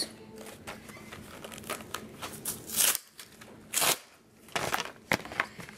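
Plastic blister pack and cardboard backing of a toy car crinkling and crackling as they are handled and opened. The sound comes in a few short scrapes and crunches over scattered small clicks.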